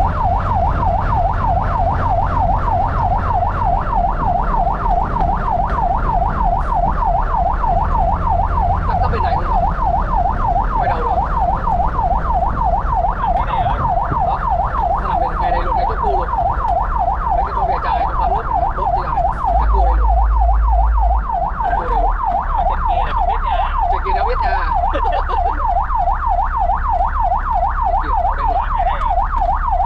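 Fire truck's electronic yelp siren heard from inside the cab, its pitch sweeping rapidly up and down several times a second, over the steady rumble of the truck's diesel engine. About 20 s in, the low rumble briefly swells for over a second.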